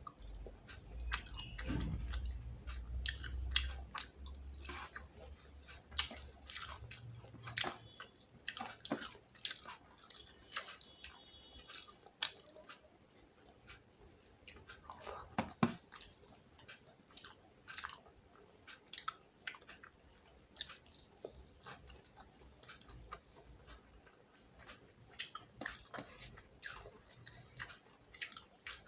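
Close-miked eating sounds: a mouth chewing fish and rice, with many small, irregular wet clicks and smacks.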